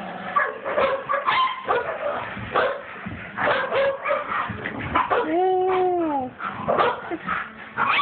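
Dogs at play, barking and yipping in quick short calls, with one whine about a second long some five seconds in that drops in pitch at its end.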